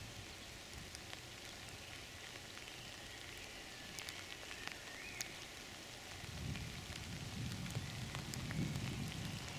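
Faint outdoor background with scattered light ticks and crackles. A low rumble swells in the last few seconds.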